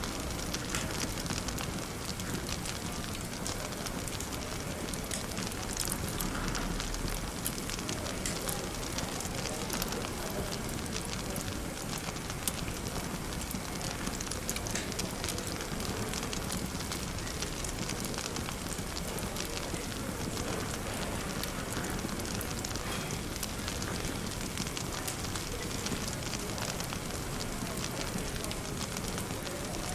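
Fireplace crackling, with frequent small pops and snaps over a steady low murmur of cafe chatter.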